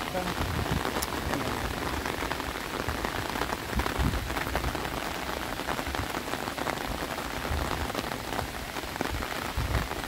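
Steady rain falling, with many small close drop hits.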